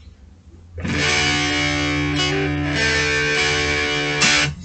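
Electric guitar on a Telecaster bridge pickup played through a Sonicake Fazy Cream fuzz pedal with its tone knob turned all the way up, giving a thin, bright fuzz like a tiny matchbox speaker. A chord is struck about a second in, picked again partway through, and rings for about three and a half seconds before being cut off, over a steady low hum.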